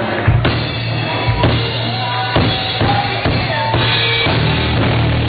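A rock drum kit played live, with heavy strikes roughly once a second over a steady low drone, in a dull, muffled amateur recording.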